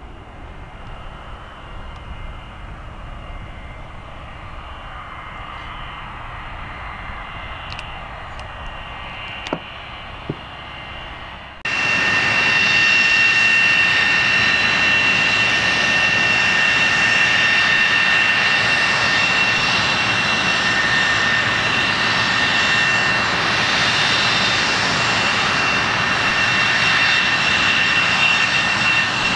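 Quieter aircraft engine noise with a faint high whine and a couple of light clicks. About twelve seconds in it cuts abruptly to the much louder steady run of an A-4 Skyhawk's turbojet, with a piercing high whine over a broad rush.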